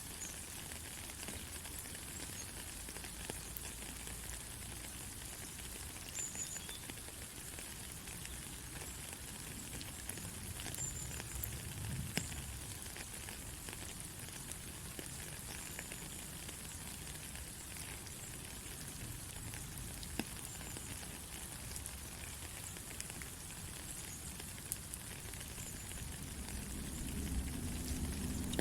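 Steady rain: an even hiss with scattered drop taps. A low rumble swells briefly about halfway through and builds again in the last couple of seconds.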